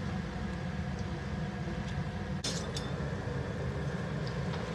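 Dal-batter fritters frying in hot oil in a kadai: a steady sizzle over a low, even rumble, with a metal spoon clinking once against the pan about halfway through.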